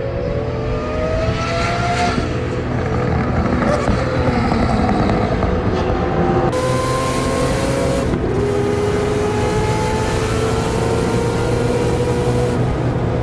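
Racing engine running under load, its pitch rising steadily through the revs, with sudden jumps where separate driving clips are cut together. It is likely the four-rotor Mazda 26B rotary engine.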